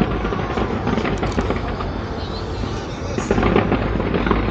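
Distant New Year's fireworks popping and crackling continuously, getting busier about three seconds in, with a crowd's chatter underneath.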